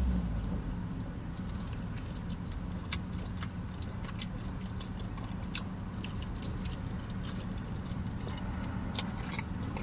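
A person chewing and biting into a saucy chicken wing: scattered short wet clicks and smacks over a steady low hum.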